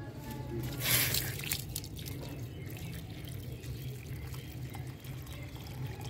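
Water from a garden hose pouring and splashing into a flooded plant pot, with a louder gush about a second in, over a steady low hum.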